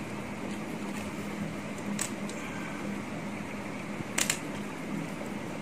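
Small plastic clicks as a landing-gear bogie is pushed into the gear bay of a 1:200 model airliner: a light click about two seconds in and a louder double click about four seconds in. Under them runs the steady hum of a room fan.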